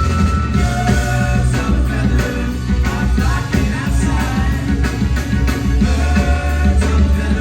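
Live rock band playing loudly: drums, bass and guitars.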